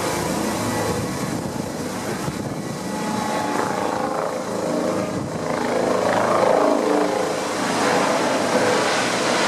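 Eurocopter EC135 helicopter running, its twin turbines and rotors making a steady noise with a whine through it that grows a little louder about six seconds in.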